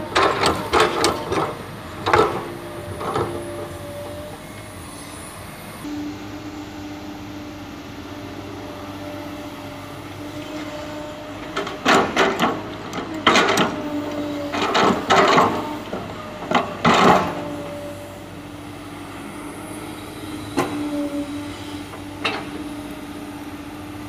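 Excavator dropping bucket loads of red soil into a dump truck's steel bed: clusters of heavy thuds and rattling clods near the start and again in the middle, with two single knocks later, over the steady hum of a diesel engine running.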